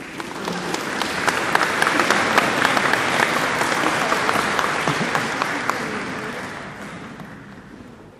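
A crowd applauding: a burst of clapping that swells over the first couple of seconds, holds, then slowly dies away near the end.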